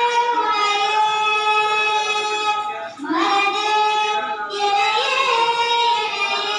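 A girl singing a Hindu devotional song into a microphone, in long held notes, with a short break for breath about three seconds in.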